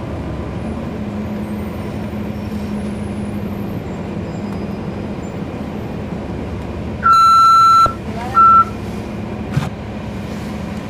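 The Cummins ISL9 inline-six diesel of a NABI 40-foot transit bus running steadily, heard from on board. About seven seconds in, a loud high electronic beep sounds for nearly a second, then a second short beep at the same pitch, followed by a click.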